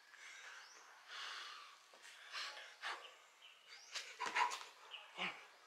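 A person breathing hard in quick, noisy breaths from the exertion of burpees, with a few short, sharp sounds near the end.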